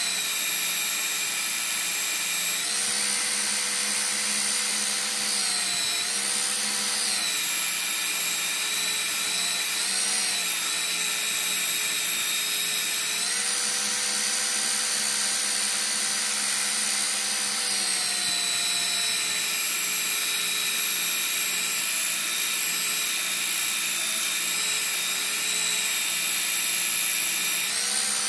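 Einhell TC-BS 8038 800-watt belt sander running steadily while a knife blade is ground against its belt to put an edge on it. The motor's pitch dips and recovers several times as the blade is pressed in.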